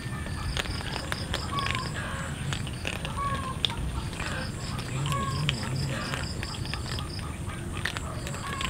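Many cats crunching dry kibble off a concrete floor, heard as a dense patter of small crunches and clicks. A short call repeats every second or two over it, with a fast string of high chirps and a steady high tone behind.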